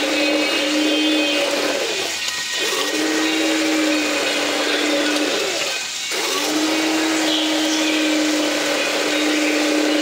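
Handheld immersion blender running in a tall plastic beaker, blending a thick creamy sauce with a steady motor hum. Twice, about two and six seconds in, the motor is let off for about a second and then run again.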